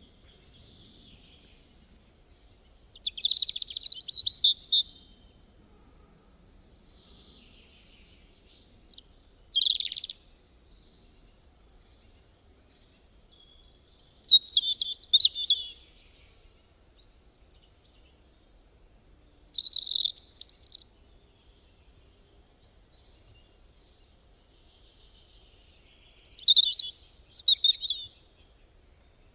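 A songbird singing short, high-pitched phrases of chirps and trills about every five seconds, with near silence between them.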